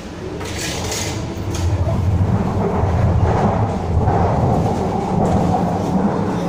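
MTR metro train running, heard from inside the passenger car: a low rumble of wheels and running gear that grows louder over the first couple of seconds as the train gathers speed, then holds steady.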